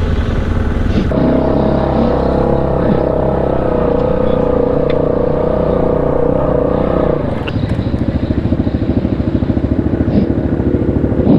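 A Yamaha 700 ATV's single-cylinder engine running steadily on the trail, then dropping to a slower, pulsing run about seven seconds in as the quad comes to a stop on a hill. A few light knocks and clatters sound near the end.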